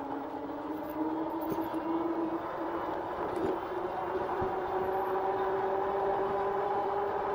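2018 RadRover electric bike's rear hub motor whining as the bike picks up speed under power, its pitch rising over the first few seconds and then holding steady.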